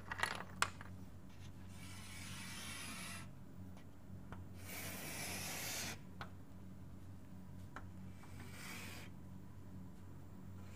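Scratchy strokes of hand writing, someone drawing a graph, in three spells of a second or more each with pauses between and a few light taps. A faint steady hum runs underneath.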